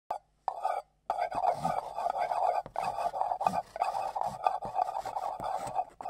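Pastel stick scraping across a painted board as letters are drawn: two short strokes, then a continuous scratchy rasp from about a second in.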